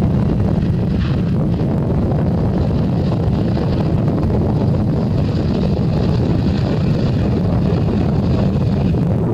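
Airbus A320neo's jet engines running at low power as it rolls slowly along the runway: a steady engine whine over a heavy rumble, with wind buffeting the microphone.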